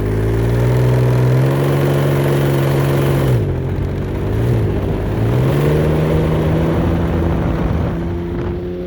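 Can-Am Ryker three-wheeler's engine and belt drivetrain under way: its pitch holds steady, falls away about three and a half seconds in, then climbs again and holds. The owner suspects a transmission fault behind the bike's hesitation on take-off.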